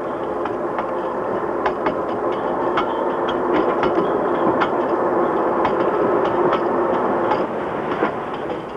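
Ship's anchor windlass running as it hauls in the anchor, a steady mechanical clatter with irregular sharp clanks, getting quieter near the end.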